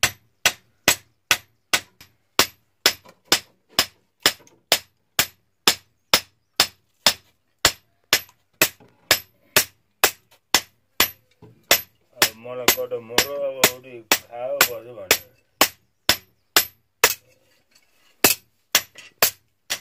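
Hand hammer beating a curved iron blade on an anvil in a steady rhythm of about two blows a second, each with a short metallic ring, with a brief break near the end. A voice sounds over the blows for a few seconds in the middle.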